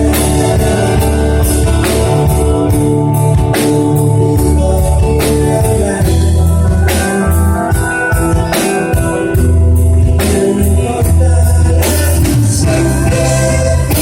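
Pop-rock song with singing over a band: bass, drums and sustained keyboard chords.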